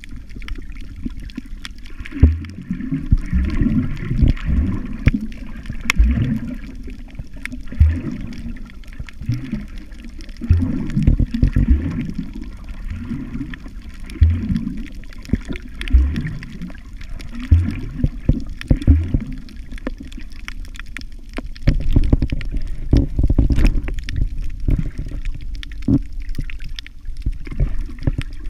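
Muffled water sloshing and gurgling heard from a camera held underwater, with dull low thumps every second or two from the water moving around it.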